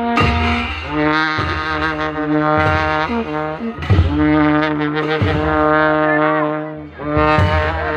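Long ceremonial brass horns sounding loud held notes, several at once, shifting pitch every second or two, with sharp drum strokes between them.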